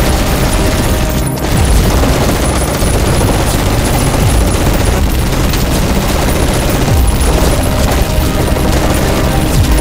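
Dense, continuous gunfire mixed with booms, a movie battle sound effect.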